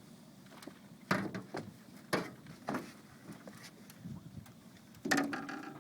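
A handful of sharp knocks and splashes, about four over a few seconds, from a caught peacock bass being handled at the water's edge, with a brief voice-like sound on the last one.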